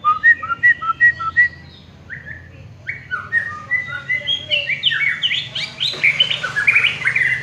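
White-rumped shama (murai batu) singing: a quick run of alternating two-note whistles at the start, then, after a short pause, a varied stream of whistles and chirps that grows louder toward the end.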